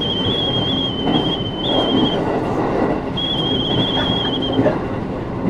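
Train running along the track with a steady rumble, and a thin, high, wavering wheel squeal twice: through the first two seconds and again from about three to four and a half seconds in.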